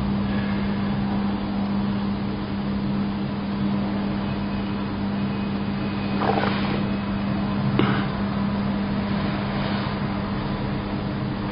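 A steady mechanical hum with a low drone and hiss. Two short, sharper sounds stand out, about six seconds in and again near eight seconds.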